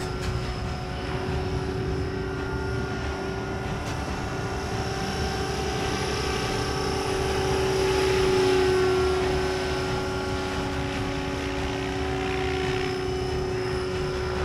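Electric RC model helicopter with T-Rex 600 mechanics and a 600M motor in flight: a steady whine from the motor and drivetrain over rotor blade noise. It grows louder about eight seconds in as the helicopter passes low and close, then eases off.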